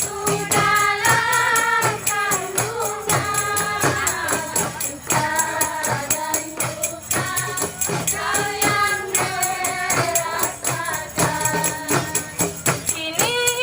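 A qasidah sung by voices in unison over a steady, quick beat of tambourine-like frame drums.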